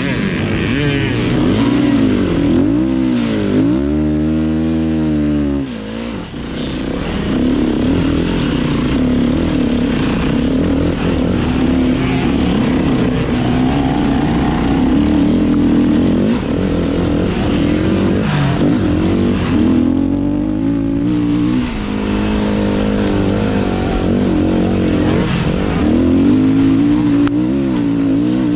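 KTM 500 EXC dirt bike's single-cylinder four-stroke engine running hard, its revs rising and falling over and over, with a deep drop and climb about four to six seconds in.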